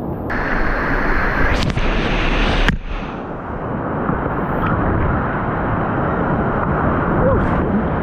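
Whitewater rapids rushing loudly close to the microphone, a dense, even noise that changes abruptly a few times in the first three seconds.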